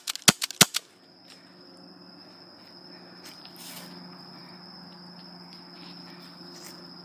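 Gas blowback M1911 airsoft pistol fired four times in quick succession within the first second, sharp cracks. After that, crickets chirp steadily in the dark over a faint low hum.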